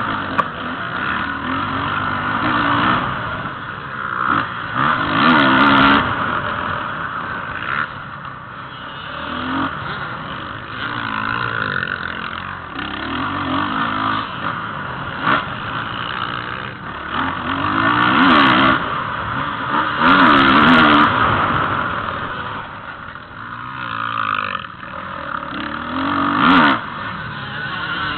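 Motocross dirt bike engine revving hard and dropping back over and over as the rider accelerates out of turns and backs off, heard close up from on board. A few sharp knocks come through along the way.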